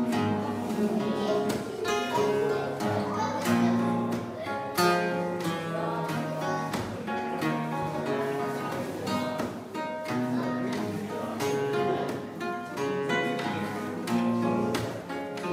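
Solo acoustic guitar playing an instrumental passage of plucked chords and single notes.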